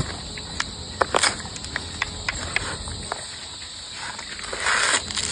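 A bear crunching and tearing at a coconut: sharp, irregular cracks and crackles, with a louder scraping rustle near the end.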